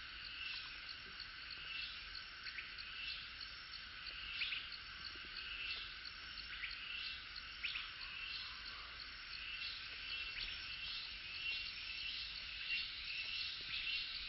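Night chorus of crickets and other insects: a steady, faint high-pitched trilling, with short chirps recurring about once a second.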